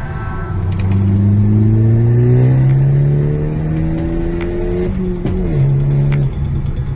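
Car engine accelerating, its pitch rising steadily, then dropping sharply about five seconds in and holding steady.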